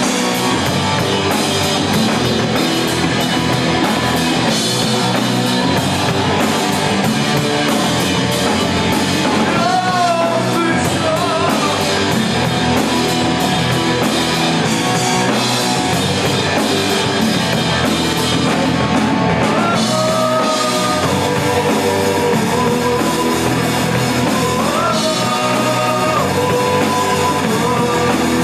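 Live rock band playing: electric guitars, bass and drum kit, with a man singing lead over them from about ten seconds in.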